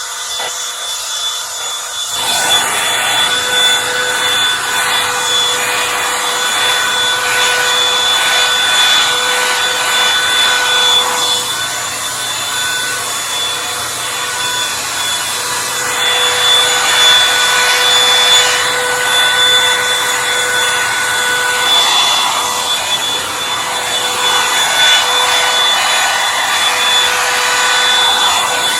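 Revlon One Step hot-air brush running: a steady rush of air with a motor whine, its bristles rubbing through hair as it is turned. It gets louder about two seconds in and swells and dips as the brush moves.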